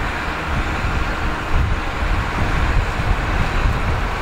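Heritage EMD diesel-electric locomotives running, a steady low engine rumble, with wind buffeting the microphone.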